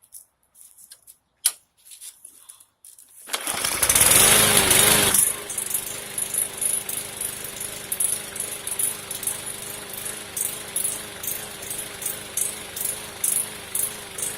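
Bolens lawnmower's small four-stroke engine: a few clicks from priming, then about three seconds in it is pull-started and catches at once with a loud burst, settling into a steady run whose speed and loudness waver in a regular pulse.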